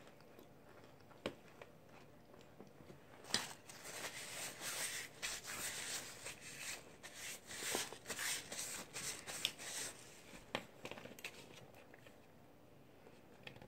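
Cornstarch-dusted hands rubbing and brushing against each other, a dry scratchy rustle that starts about three seconds in and lasts several seconds, with a few scattered clicks before and after.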